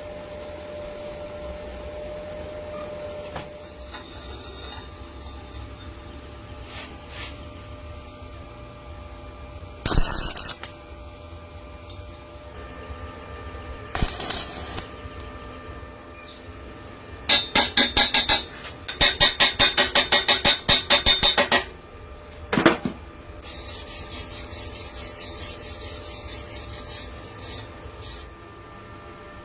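Metal being worked with hand tools: a few sharp knocks, two quick runs of repeated scraping strokes about two-thirds of the way in, then a longer stretch of hissy scraping, over a steady hum.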